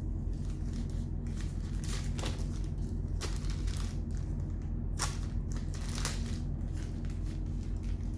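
Plastic wrapping crinkling and crackling as charging cables are handled and unpacked: a string of irregular short crackles over a steady low hum.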